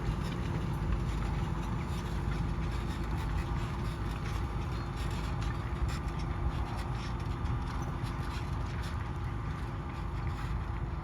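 Fendt 720 tractor's diesel engine running at a steady pitch while ploughing, a continuous low drone with faint scattered clicks over it.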